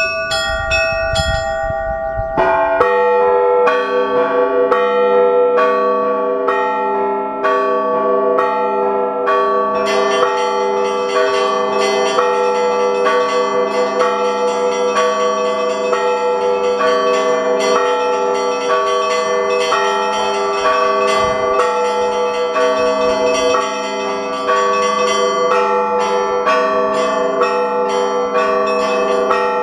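Orthodox monastery bells ringing a full peal. Higher bells start it, lower bells join after about two seconds, and from about ten seconds in, quick repeated strokes of the small bells fill in over the sustained ringing of the larger ones.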